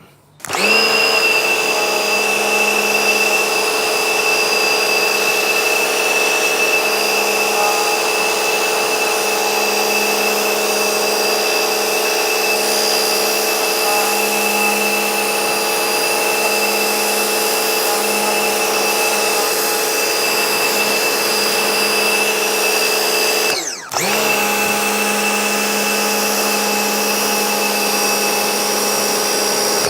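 Electric pressure washer running steadily, its motor humming over the hiss of the water jet. About 24 seconds in the trigger is let go for a moment: the motor winds down and spins straight back up.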